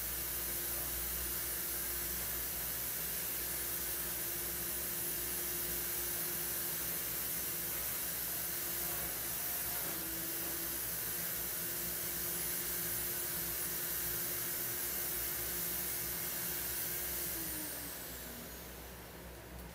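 An electric motor appliance running with a steady hiss and a hum. It is switched off near the end, and its whine falls in pitch as it winds down.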